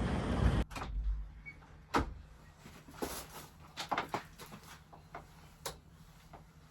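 A loud steady noise cuts off abruptly, then a few sharp clicks and knocks over a low steady hum, like things being handled or a door or cupboard being worked.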